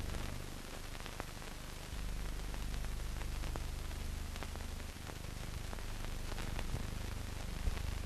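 Steady hiss and low hum of an old optical film soundtrack, with scattered faint crackles and clicks.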